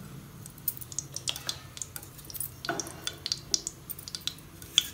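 Melted ghee heating in a hot nonstick pan, crackling with small irregular pops and ticks, over a faint low steady hum.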